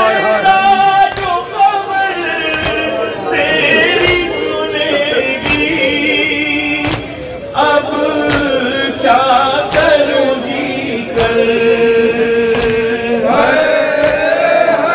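A Shia mourning chant (noha) sung by a male reciter with a group of men joining in, held melodic lines throughout. Sharp beats land about once a second, matching the rhythm of chest-beating (matam).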